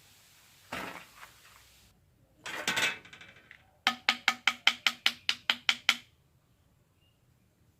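Two short noisy bursts, then a quick run of about a dozen sharp, hollow knocks at roughly six a second.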